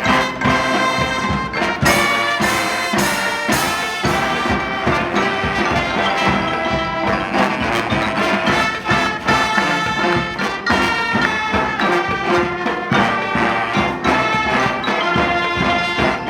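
Brass band playing live: trumpets and trombones hold sustained, harmonized notes over a steady drum beat.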